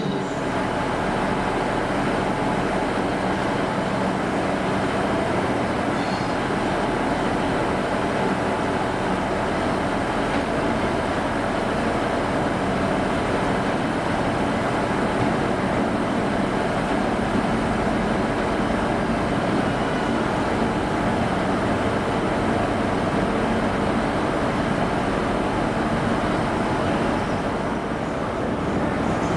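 Diesel engine of a Class 43 HST power car running steadily as the train draws slowly along the platform.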